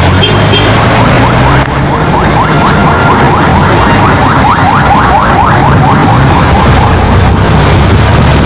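Wind buffeting the microphone and a motorcycle engine running on an open ride through traffic, a loud steady rumble. From about two seconds in to well past the middle, a fast series of short rising chirps sounds over it, about five a second.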